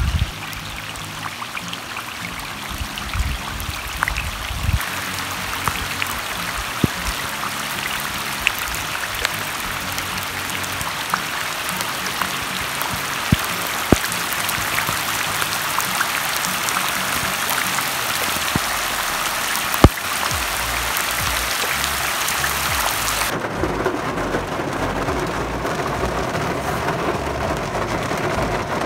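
Heavy rain pouring onto a river's surface: a dense steady hiss with sharp individual drop splats. About three-quarters of the way through it changes to a duller, lower sound of rain on a car, heard from inside.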